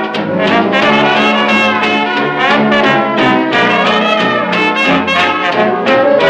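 Instrumental passage from a 1930 hot dance band 78 rpm record: the brass section, trumpets and trombone, plays the tune over the band's reeds and a rhythm section keeping a steady beat.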